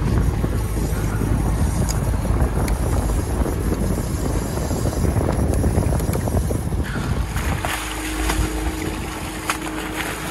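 Wind buffeting the microphone over the rush of sea water along a sailboat's hull. About seven seconds in, a steady low hum comes in and a hooked mahi-mahi splashes at the surface beside the hull.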